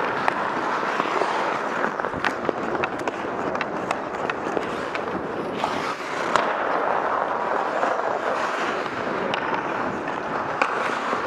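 Ice hockey skates scraping and carving on the ice in a steady rush, with scattered sharp clicks of sticks striking the puck and the ice.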